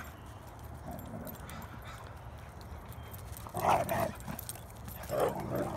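Dogs in rough play, with two short bursts of dog vocalizing about a second and a half apart, the first about three and a half seconds in and the louder of the two.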